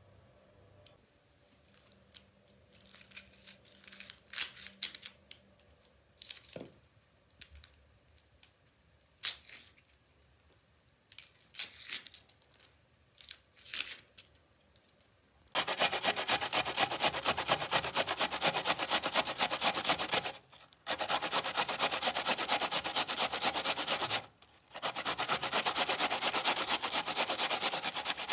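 A kitchen knife making scattered light clicks and scrapes while an onion is trimmed. About halfway through, an onion rubbed hard on a metal hand grater: a steady fast rasping, broken by two short pauses.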